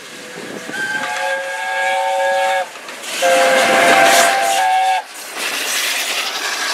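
Peppercorn A1 steam locomotive Tornado (60163) sounding two long blasts on its whistle, each a chord of several notes. After the second blast comes the rush and clatter of the locomotive and mail coaches passing close by at speed.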